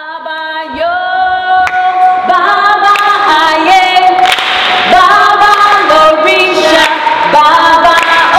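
A woman singing in long held notes that slide from one pitch to the next, with more voices singing along.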